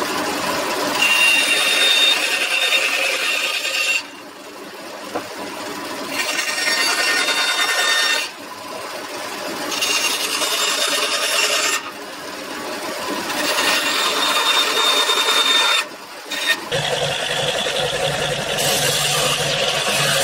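Bandsaw cutting a wooden board in four passes, the sound dropping between passes while the blade runs free. About 17 seconds in it changes to a Ryobi bench belt-and-disc sander running with a low hum as the board is held to the disc.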